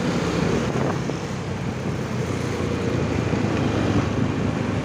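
Motorcycle engine running while riding in traffic, with wind buffeting the microphone and the noise of surrounding vehicles.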